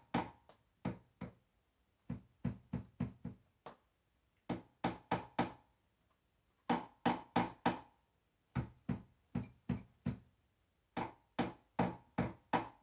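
Small hammer tapping little tacks into the side of a vanity: quick runs of three to six light strikes with short pauses between. The tacks are going in with difficulty.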